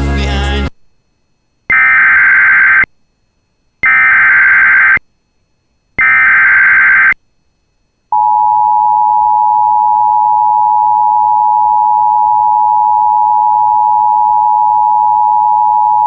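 Emergency Alert System SAME header: three loud, screeching data bursts of about a second each, a second apart. About eight seconds in, the steady two-tone EAS attention signal starts and holds for about eight seconds. Together they announce an incoming alert, here a severe thunderstorm warning.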